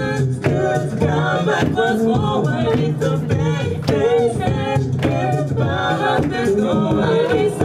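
An amplified a cappella group singing a song in several parts: a low sung bass line under lead and harmony voices, with vocal percussion keeping a steady beat.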